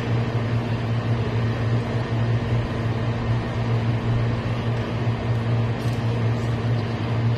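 A steady low hum, with a faint clink of cutlery on a plate about six seconds in.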